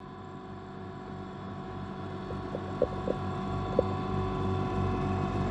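Rotary snowplough clearing the line, pushed by a diesel locomotive and approaching: a steady machine hum with several tones, growing louder, as the rotor throws snow aside. A few short knocks come about halfway through.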